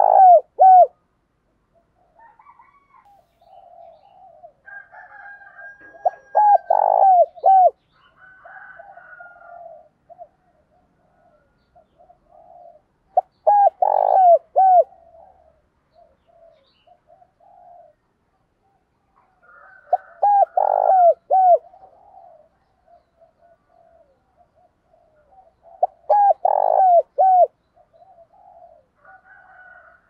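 Spotted dove (Streptopelia chinensis) singing its cooing song, a loud phrase of short falling coos about every six to seven seconds, five times, with softer, quieter notes in between.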